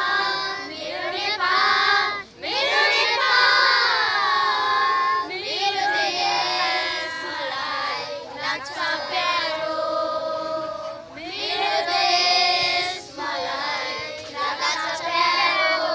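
A group of children's voices singing together, with phrases that break off and start again.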